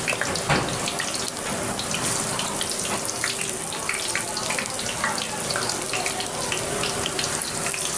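Water running from a tap into a sink, splashing steadily, with scattered small knocks and clinks.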